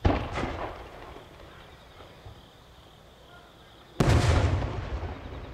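Aerial fireworks: a sharp bang at the start, then about four seconds in the loud boom of a shell bursting overhead, its rumble trailing off.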